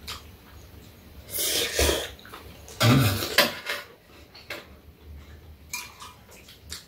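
Eating at the table: metal spoons and chopsticks clicking against ceramic bowls of soup, with two loud breathy sounds from someone eating, about one and a half and three seconds in.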